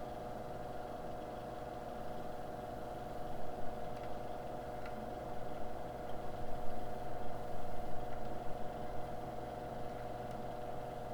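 Steady hum of an electric blower or fan on soldering rework equipment, with a few faint light clicks and taps in the middle.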